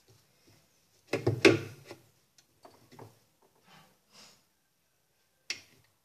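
Hard plastic parts of a top-load washing machine's agitator knocking and scraping as its upper section is seated and a long screwdriver carrying the fixing screw is worked down the centre tube. A loud clunk comes about a second in, fainter knocks and scrapes follow, and there is a sharp click near the end.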